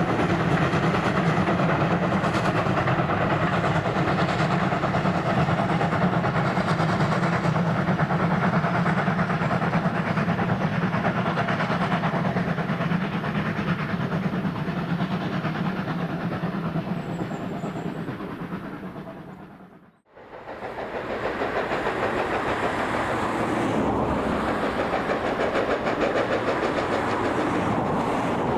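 Steam train running past, with the carriage wheels clattering over the rail joints. The sound fades to silence about twenty seconds in and returns straight away with another passing train.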